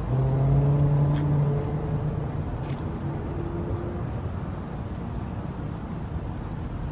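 Street traffic: a vehicle's engine drone rises slightly in pitch for about two seconds, then fades into a steady traffic hum, with two faint clicks.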